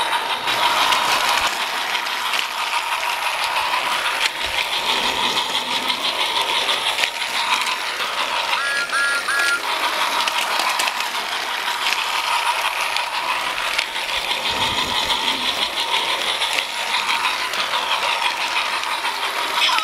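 Battery-powered Fisher-Price TrackMaster Thomas toy engine running around plastic track: a steady motor whine under a busy rattling clatter of the wheels and the trailing truck on the track. About nine seconds in, three short high tones sound.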